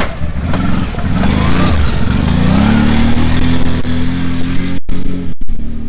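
ATV engine revving up, its pitch climbing for about a second, then running steadily as the quad pulls away, with two brief dropouts in the sound near the end.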